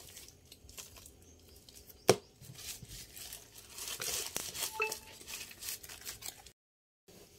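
Plastic phone cases being handled and set down on a table: one sharp click about two seconds in, then rustling and light clattering. The sound stops dead for a moment near the end.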